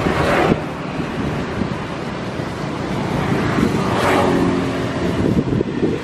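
Wind buffeting the microphone over a steady outdoor rumble, with swells of hiss at the start and about four seconds in.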